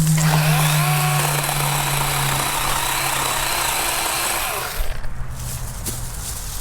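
DeWalt battery-powered chainsaw running and cutting through wood, a steady motor hum under the hiss of the chain in the cut. The cutting noise stops suddenly about five seconds in.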